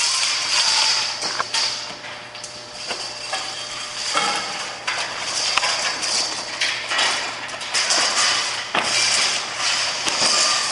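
Baling strap being fed through the steel wire slots of a hydraulic tire baler around a compressed tire bale: scraping and rustling with scattered metallic clinks and knocks.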